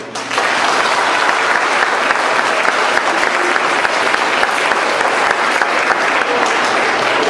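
Audience applauding. The applause starts sharply a moment after the singing stops and stays dense and steady.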